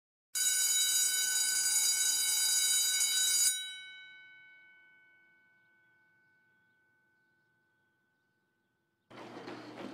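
School bell ringing steadily for about three seconds, then cutting off and ringing away slowly. Near the end, a patter of footsteps starts.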